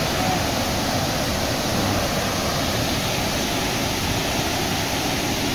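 A steady, even rushing noise, like running water.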